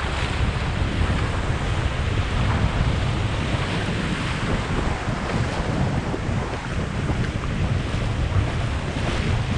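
Strong wind buffeting the microphone with a steady low rumble, over the continuous wash of heavy surf.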